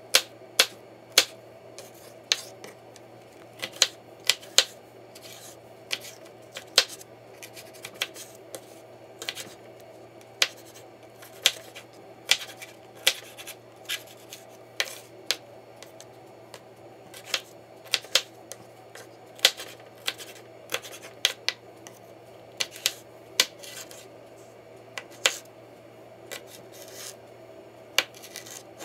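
Kitchen knife chopping bell peppers on a bamboo cutting board: sharp, unevenly spaced knocks of the blade striking the board, roughly one or two a second, over a steady low hum.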